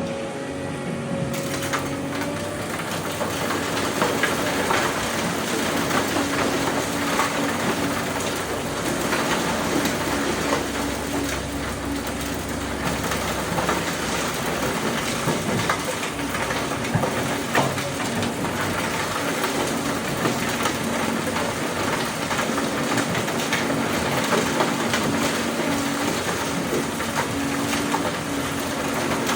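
Doosan DX200A excavator working: its engine runs steadily under a continuous irregular clatter and crunch of rock and soil being dug and loaded.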